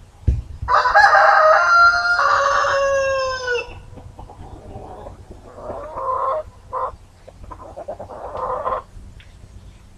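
A rooster crows once, a long cock-a-doodle-doo of about three seconds that drops in pitch at the end. It is followed by a few shorter, rough clucking calls.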